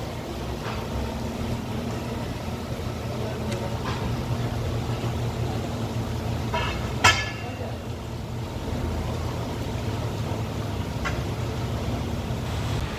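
Steady low machinery hum in a ceramic factory's clay section, with scattered knocks and one sharp metallic clank about seven seconds in, as a worker levers a plate filter press's handwheel with a long metal bar.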